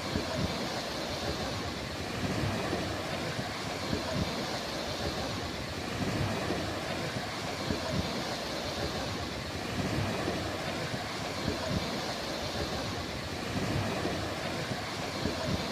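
Sea waves washing onto the shore in a steady wash of surf, swelling gently about every two seconds.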